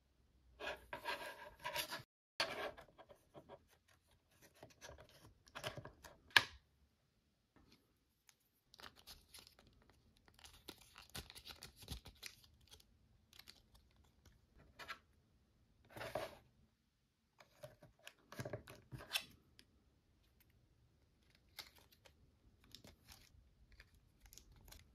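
Stiff printed cardboard toy pieces being handled and slid together: intermittent scraping and rubbing of card on card, with a sharp click about six seconds in.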